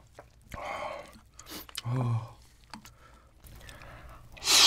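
A man's breathy exhale and a short hummed voice sound, then near the end a loud wet mouth noise as a heaped spoonful of raw-fish rice bowl (hoedeopbap) is taken into the mouth.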